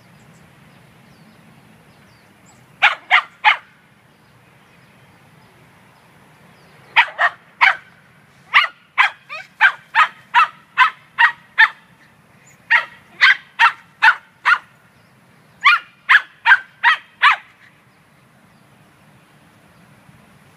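A small Scottish terrier barking in quick, sharp bursts of two to three barks a second, in four bouts with pauses between, at squirrels up in the trees.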